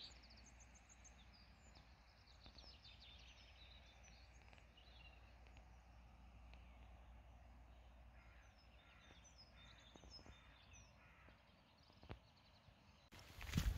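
Small birds singing faintly, quick runs of high chirps and trills, over a low steady background hum. Near the end, louder footsteps on a track cut in abruptly.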